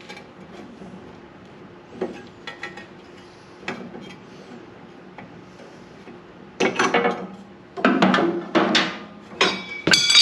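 Steel plate and metal clamps being handled on a steel frame: a few light knocks, then a quick run of sharp, ringing metal clanks over the last few seconds.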